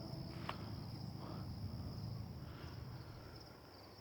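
Crickets trilling in one steady, unbroken high-pitched tone, over faint low rustling.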